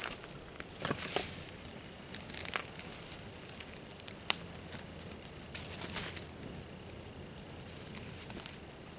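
Small campfire of dry sticks and palm fronds crackling, with scattered sharp pops and a few short bursts of rustling dry brush.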